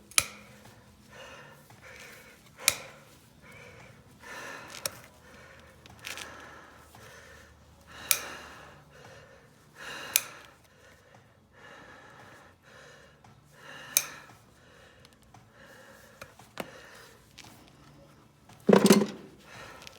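Hoof trimming: sharp snaps of hoof nippers or a hoof knife cutting through hoof horn, about six of them a couple of seconds apart, with soft scraping between. A louder thud comes near the end.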